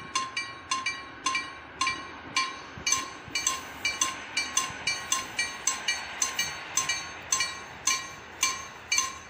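Railway crossing warning bell ringing in quick, evenly paced strokes, about two to three a second, each a bright metallic ding that rings on briefly: the warning that a train is approaching the crossing.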